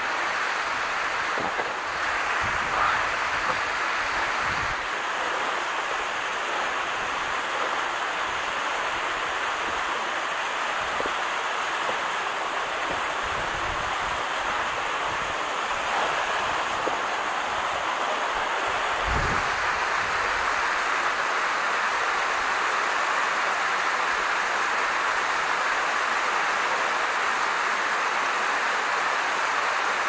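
Steady rush of a waterfall, with a few brief low rumbles of wind on the microphone.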